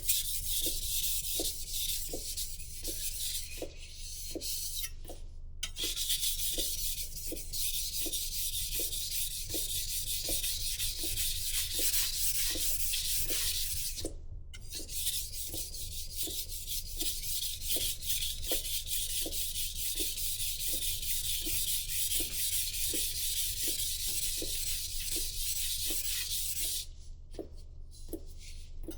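Knife blade being stroked back and forth on a sharpening stone: a steady gritty scraping in an even rhythm of a little under two strokes a second, stopping briefly twice and easing off near the end.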